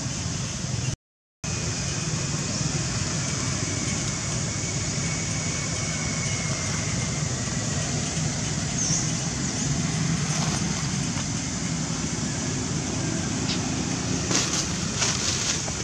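Steady outdoor background noise: a low hum under a high hiss, with a short dropout to silence about a second in and a few faint clicks near the end.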